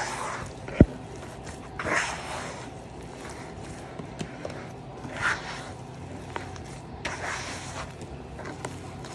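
A hand mixing wet, crumbly masa dough in a bowl: intermittent squelching and scraping against the bowl's side, with one sharp thump about a second in.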